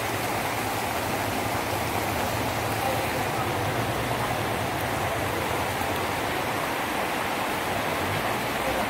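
Steady rushing noise of a swollen, muddy river in flood.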